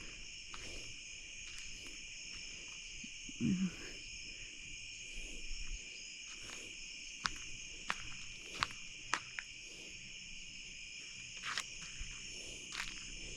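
Steady chorus of night insects, crickets among them, with scattered sharp clicks and one short low call about three and a half seconds in.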